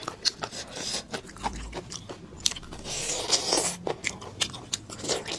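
Close-miked eating sounds of a person biting and chewing food: wet mouth clicks and smacks, with a longer noisy stretch about three seconds in.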